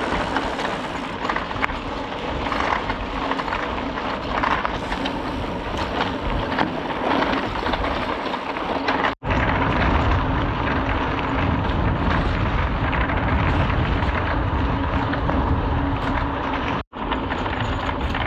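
Steady rush of a mountain bike on the move: riding wind on the microphone and tyre hum. It breaks off sharply for a moment twice, about nine and seventeen seconds in.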